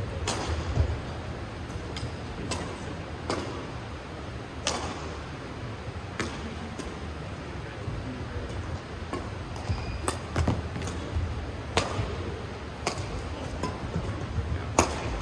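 Badminton rackets striking a shuttlecock in a fast doubles rally: sharp, irregular hits about once a second, in a reverberant sports hall.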